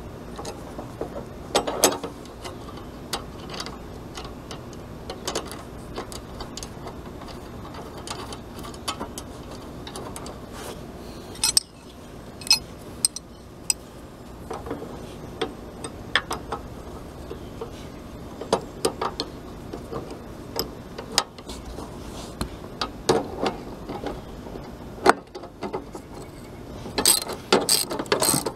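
Socket ratchet clicking and steel tools clinking as the nut on a lawn tractor's tie-rod end is tightened, in scattered short runs, with a fast, dense run of ratchet clicks near the end.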